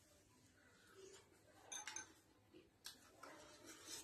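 Faint eating sounds in a near-silent room: soft chewing and a few light clicks and ticks scattered through it.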